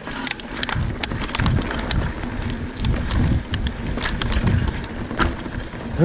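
Mountain bike riding over a bumpy dirt singletrack: tyres rolling on the ground while the chain and frame rattle, giving many sharp clicks, under an uneven low rumble.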